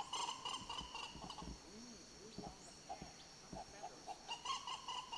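A pair of macaws calling in flight: a fast run of repeated calls, about five a second, that fades out a second and a half in and starts up again near the end.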